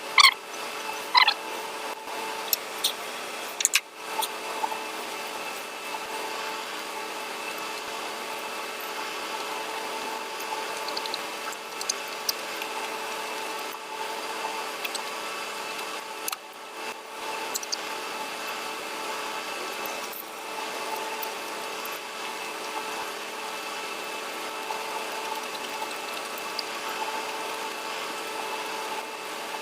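Occasional wet mouth clicks and chewing sounds from eating rice and curry, over a steady mechanical background hum.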